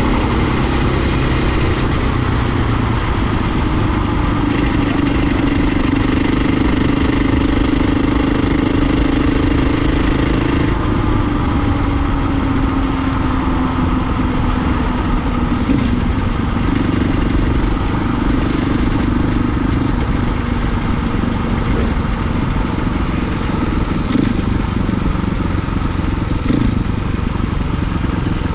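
Dirt bike engine running at road speed, heard from the rider's seat over wind and road noise. The engine note eases and drops in pitch near the middle, then picks up again.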